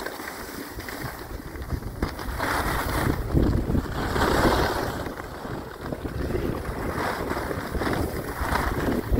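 Wind rushing over the microphone, together with the hiss and scrape of gliding down a groomed snow piste, swelling louder in waves.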